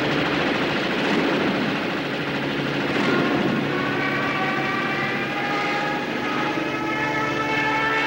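Propeller warplane diving: a steady rushing engine roar, joined about three seconds in by a high, multi-tone whine that climbs slowly in pitch.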